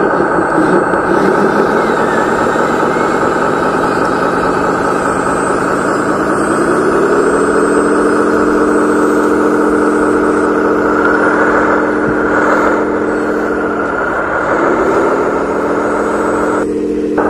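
Radio-controlled toy dump truck running with a steady engine-like drone; the pitch rises smoothly about six seconds in as it climbs away, then dips briefly and comes back up near the end.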